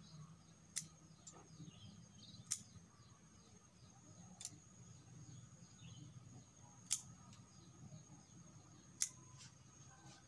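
Bonsai cutters snipping twigs off a Fukien tea bonsai: five sharp clicks, about two seconds apart.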